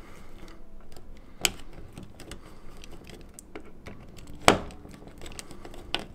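Small flathead screwdriver working the terminal screws on a thermostat base, making scattered sharp clicks and faint ticks of metal on metal and plastic as the screws are loosened; the loudest click comes about four and a half seconds in.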